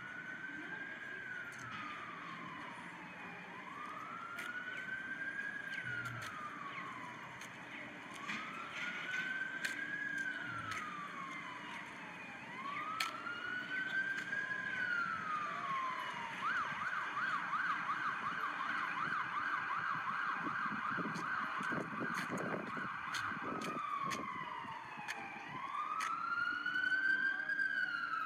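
Emergency vehicle siren sounding a slow wail that rises and falls about every four seconds. Past the middle it switches to a fast yelp for several seconds, then goes back to the wail, with traffic rumbling underneath.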